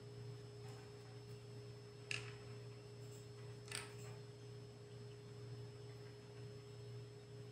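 Quiet room tone: a steady low electrical hum with a faint steady tone above it. Two light clicks come about two seconds in and again near four seconds.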